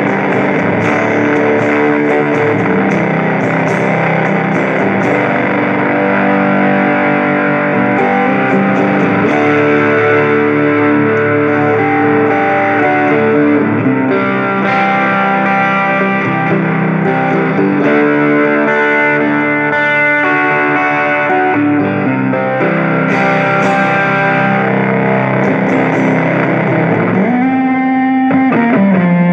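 Electric guitar (Squier Stratocaster) through a cranked TS-style overdrive pedal into a Fender Champion 20 amp, playing distorted, sustained chords that change every couple of seconds, with a string bend rising and falling near the end.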